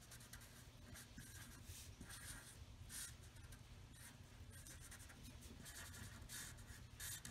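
Black Sharpie permanent marker stroking on paper: a series of short, faint strokes as small music notes are drawn.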